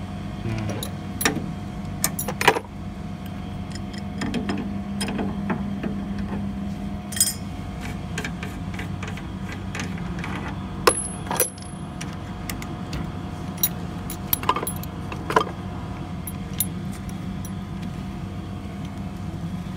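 Steady low machine hum with scattered sharp metallic clicks and clinks of hand tools on an air conditioner's refrigerant fittings during a pump-down.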